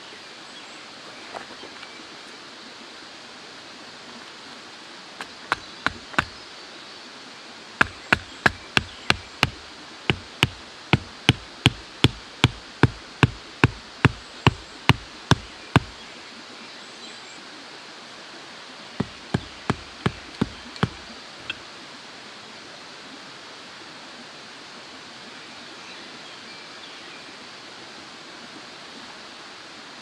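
Steel hatchet poll hammering a wooden tent stake into the forest floor: sharp knocks at a steady two to three strokes a second, in a short run, then a long run of about twenty, then a few more near the middle. Under them is a steady background hiss.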